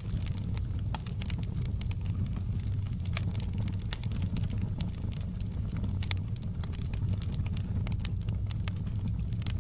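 Wood fire crackling in a fireplace: a steady low rumble of flames with frequent, irregular sharp pops and crackles.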